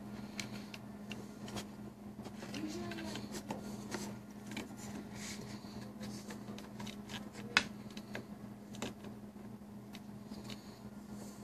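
Hands handling the small metal and plastic parts of a model airplane's throttle linkage close to the microphone: scattered light clicks and taps, with one sharp click a little past the middle, over a steady low hum.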